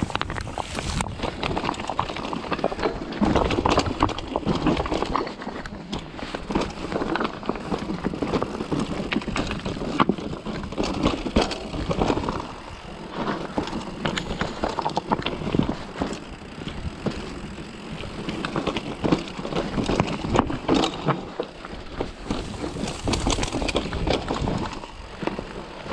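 Mountain bike clattering down a rough stone trail: tyres on rock, with the chain and frame rattling and many irregular knocks.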